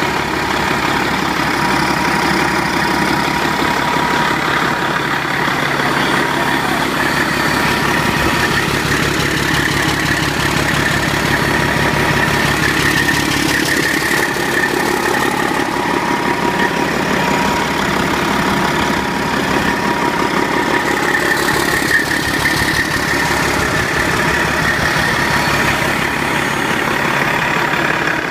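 Detroit Diesel Series 60 12.7-litre inline-six diesel engine running steadily at idle.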